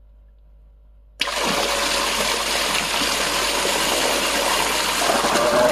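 SEAFLO 1100 GPH automatic bilge pump switching on abruptly about a second in as its float switch is tripped, then pumping hard: a loud, steady gush of water from its 1-1/8 inch outlet splashing and churning in a full sink.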